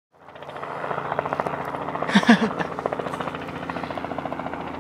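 Helicopter flying: a steady engine-and-rotor drone with a rapid, regular beat.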